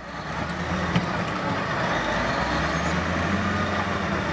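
Bulldozer's diesel engine running steadily, a constant low drone with a rough mechanical noise over it.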